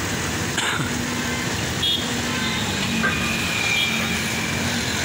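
Steady road-traffic noise, with vehicle engines running and a couple of short horn toots.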